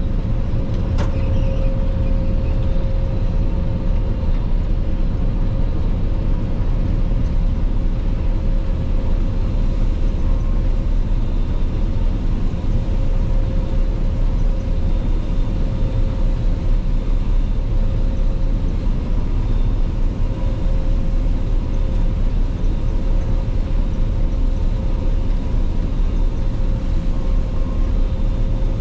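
Claas Lexion 480 combine harvester running steadily while harvesting rapeseed: a deep, even rumble with a constant whine on top. There is a single brief click about a second in.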